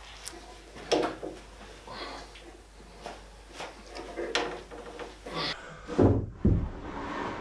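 Wooden boards being handled and knocked against one another and the bench: scattered sharp knocks and clatter, then two loud thuds about six seconds in.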